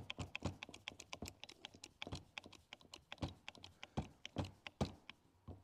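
Hand hydraulic crimping tool being pumped to crimp a copper lug onto a battery cable: rapid, irregular small clicks, several a second, with a few sharper clicks in the second half.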